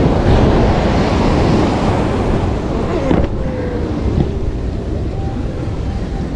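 Surf washing and breaking against the boulders of a rock jetty, mixed with wind noise on the microphone, with a brief click about three seconds in.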